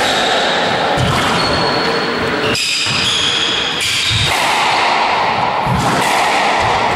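Squash rally: the ball thudding off rackets and walls every second or two, with shoes squeaking in short high squeals on the wooden court floor.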